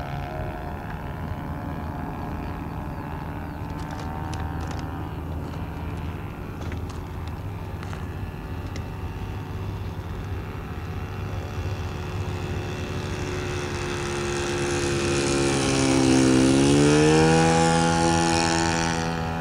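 O.S. 1.20 four-stroke glow engine of a radio-controlled P-51 Mustang model running in flight, a steady engine tone with its propeller. Near the end it grows louder, its pitch dipping and then rising again.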